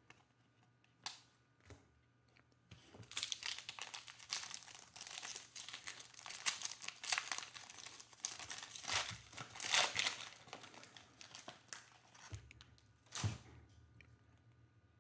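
A trading-card pack's shiny plastic wrapper being torn open and crinkled by hand: a dense, crackling rustle from about three seconds in until about twelve seconds. A single sharp click comes near the end.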